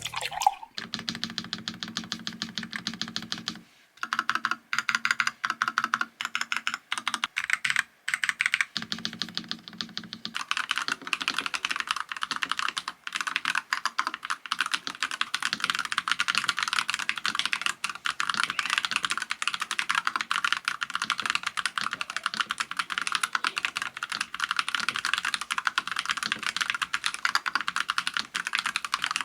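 Typing on a NuPhy Halo96 mechanical keyboard with Baby Kangaroo switches: keystrokes with a couple of brief pauses, turning into continuous fast typing about ten seconds in.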